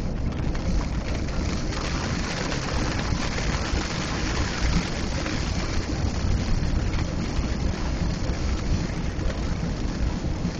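Rain falling steadily on a moving car, heard from inside the cabin over a steady low road and engine rumble.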